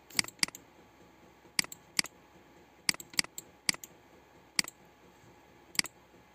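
Computer mouse clicking, about nine sharp single clicks at irregular intervals, some in quick pairs.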